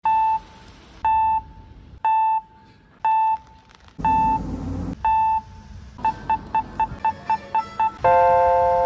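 Electronic beeps: six evenly spaced beeps about once a second, then a quick run of eight short beeps, ending in a long chime tone that slowly fades.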